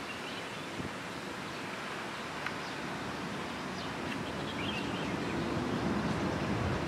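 Steady outdoor background noise with wind on the microphone, and a few faint, brief high sounds in the distance.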